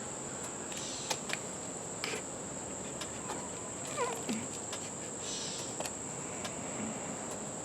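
Steady high-pitched insect trill, like crickets, with a few faint clicks and one short falling call about four seconds in.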